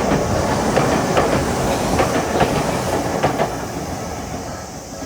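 A passing train, its wheels clacking rhythmically over the rail joints over a steady rumble, loud at first and growing fainter near the end.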